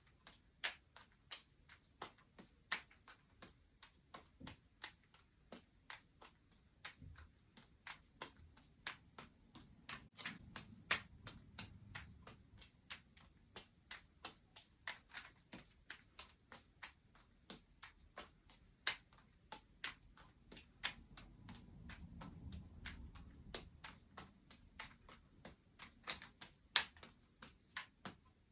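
Juggling balls caught in the hands over and over: a steady run of sharp slaps, about two to three a second, uneven in loudness.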